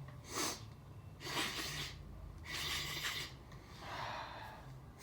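A man sniffing hard through his nose four times, snorting Chhinkni sneezing powder up his nostrils; the middle two sniffs are longer.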